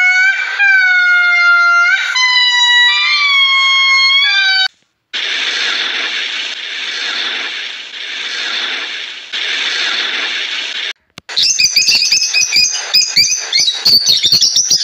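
Three short sounds in turn, with brief silent cuts between them. First a series of long, wavering, tonal animal calls, each held about a second. Then a steady hiss of aquarium water, and in the last few seconds a rapid run of bird chirps and clicks.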